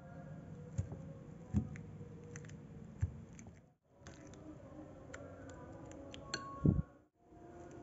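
A metal fork mashing peeled bananas in a glass bowl: soft squishing with scattered sharp clinks of the tines against the glass, the loudest clinks coming near the end.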